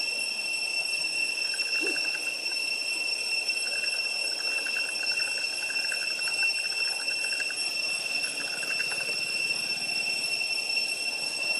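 Steady high-pitched insect whine in the trees, with a pulsing insect trill coming and going over it through the middle.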